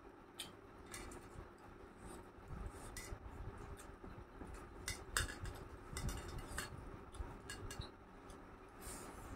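Irregular light clicks and clinks from fingers and bangles against a stainless steel plate as rice is mixed and scooped up by hand; the sharpest click comes about five seconds in.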